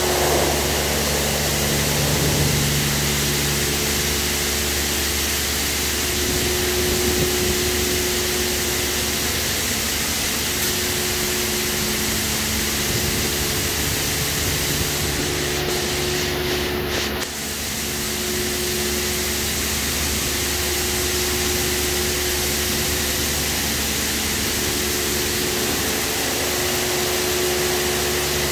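WashTec SoftCare2 Pro rollover car wash running: a steady hiss of water spray over the car, with a motor hum and a tone that comes and goes every few seconds. The spray dips briefly a little past the middle.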